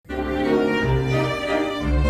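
Background music with bowed strings: cello and violin playing a sustained tune from the very start.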